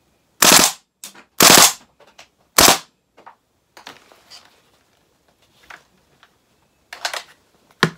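Gas blowback airsoft L85A2 rifle firing: three loud sharp shots about a second apart, each with the bolt slamming back and forth in the receiver, followed by fainter clacks and two more shots near the end. The receiver's back-and-forth banging is very loud.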